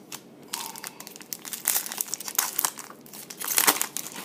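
A foil trading-card pack wrapper crinkling as a pack is handled and opened, with an irregular run of crackles, loudest about three and a half seconds in.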